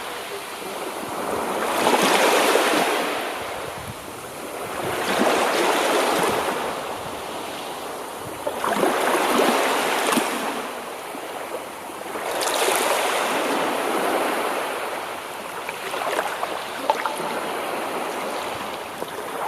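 Ocean waves breaking and washing in, each surge swelling and fading about every three to four seconds, with a few small crackles later on.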